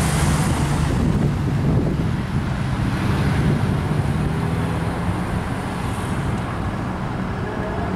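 Road traffic at a crossing: a car passes close by at the start, then a steady low engine hum goes on, with wind buffeting the microphone.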